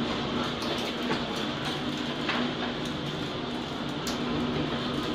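Steady rush of a tornado's wind, with a few sharp ticks of flying debris.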